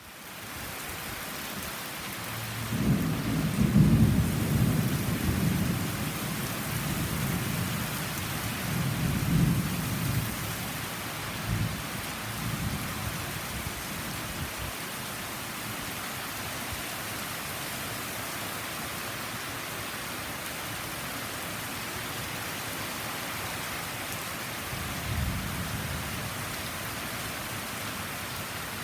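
Heavy tropical-storm rain falling steadily. A long rumble of thunder starts about three seconds in and rolls on for several seconds, and a shorter rumble comes near the end.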